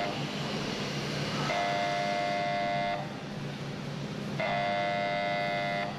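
Warning horn of a self-propelled heavy-load transporter moving a ship's hull section: a buzzing tone of about a second and a half that repeats every three seconds, twice within the span and starting again near the end. Under it runs a steady low engine hum.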